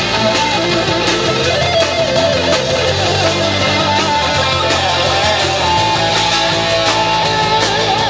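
Live amplified band playing a song: electric guitars and a strummed acoustic guitar over a drum kit, loud and steady.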